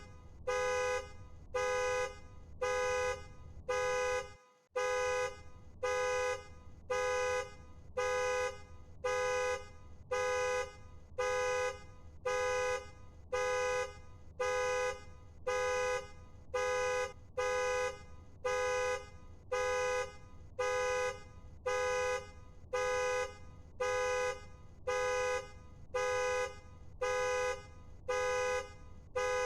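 Car alarm blaring the car's horn in evenly repeated honks, about one a second, each just over half a second long. There is a brief drop-out about four and a half seconds in.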